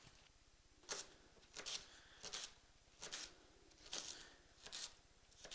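Kitchen knife chopping leeks on a wooden chopping board: about seven crisp cuts, evenly spaced a little under a second apart.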